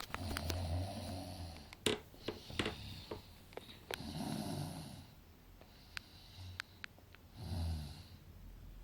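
A person snoring, put on as a demonstration of one type of snore: about four snores, some over a second long, with a few short clicks between them.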